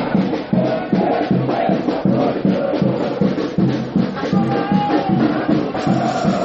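A supporters' samba bateria drumming a steady, fast beat, with the fans singing a chant over it.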